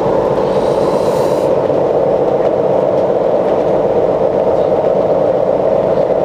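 Yacht's engines running, a steady, even mechanical drone with no break.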